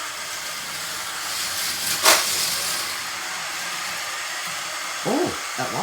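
Electric motors of a K'nex roller coaster's lift and boosters running with a steady whirring hiss. A sharp clack sounds about two seconds in.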